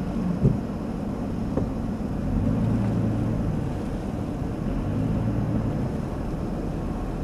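A four-wheel-drive vehicle's engine running steadily at low speed, with tyre and road rumble as it drives through deep snow, and a couple of short knocks in the first half-second.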